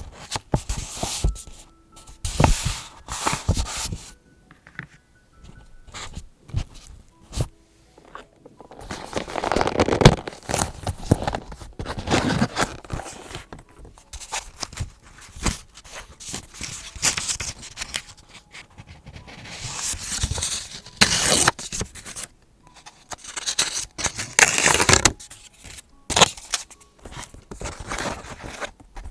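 Paper being handled for vintage journaling: irregular bursts of rustling, crinkling and scraping, some long and some short, with quieter gaps between them.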